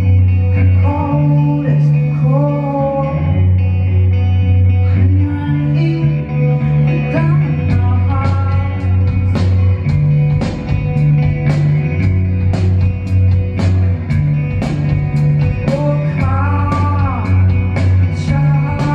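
Live rock music: a woman sings over a repeating bass line and guitar, and drums come in about six seconds in with a steady beat.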